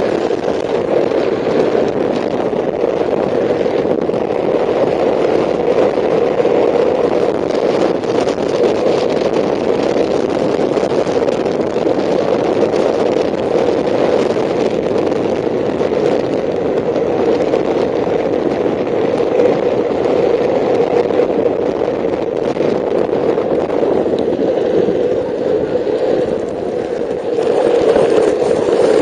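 Speed trike rolling fast down an asphalt road: a steady rumble of its wheels on the pavement, mixed with rushing wind, dipping briefly near the end.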